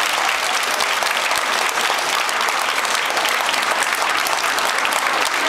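Large concert audience applauding, a dense, steady patter of many hands clapping.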